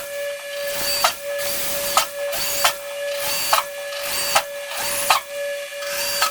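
Electric drill running with a steady whine while its bit cuts through a spot weld in the cab's sheet-metal panel, catching and squeaking sharply about once a second.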